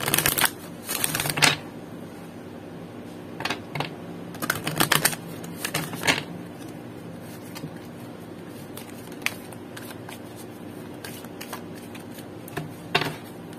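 A deck of oracle cards shuffled by hand: bursts of quick flicking, card against card, loudest in the first second and a half and again about four to six seconds in, with scattered single taps between and a last short burst near the end.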